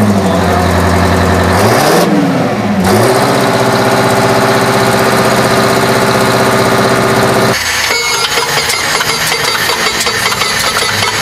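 Giant articulated four-wheel-drive farm tractor's diesel engine running, its pitch dipping and rising briefly about two seconds in, then holding steady. About seven and a half seconds in it switches abruptly to a radial engine running with a rapid ticking clatter.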